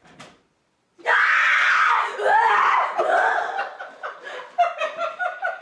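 A child screams in fright, suddenly and loudly, about a second in, then laughter follows toward the end.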